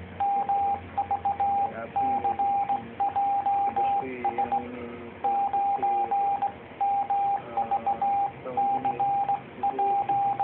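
Morse code (CW) sent by hand on an amateur radio transceiver: a single steady mid-pitched beep keyed on and off in dots and dashes, with short gaps between characters and words.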